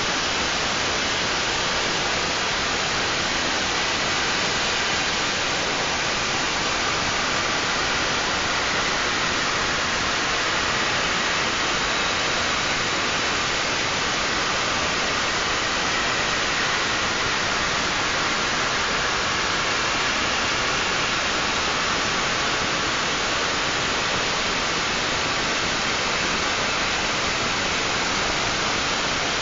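CNC milling machine running: a steady hiss with faint high whines, unchanging in level.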